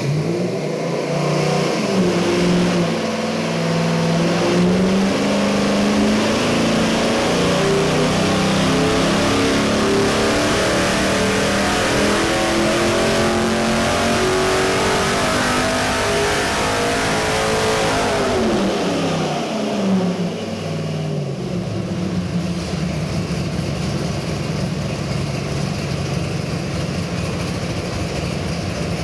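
Chevy 327 small-block V8 crate engine making a pull under load on an engine dyno. Its revs climb steadily for about 18 seconds, then drop back quickly and it settles into a steady idle.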